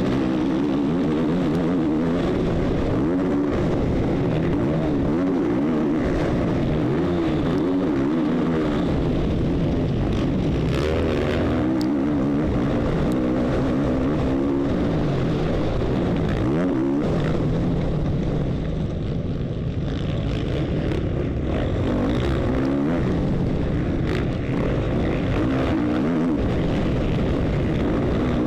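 450cc motocross bike's engine at race pace, heard close up from on the bike, revving up and down again and again as the throttle is opened and closed. About two-thirds of the way in it eases off for a few seconds.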